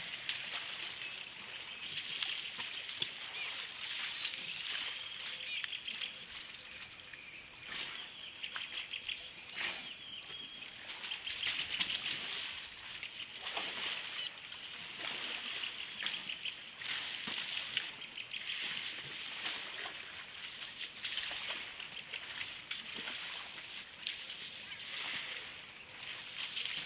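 African elephants wallowing in a muddy waterhole: irregular splashing and sloshing of mud and water, with short bursts throughout as they kick and roll.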